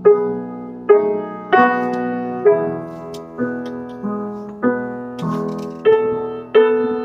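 Piano prepared with tinfoil, washers and bolts on its strings, playing a slow run of chords, one struck about every two-thirds of a second and ringing on between strikes.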